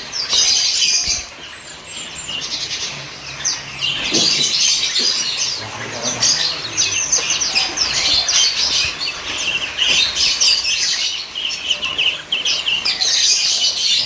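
Many caged songbirds chirping and twittering at once: a dense, unbroken chorus of short, high chirps.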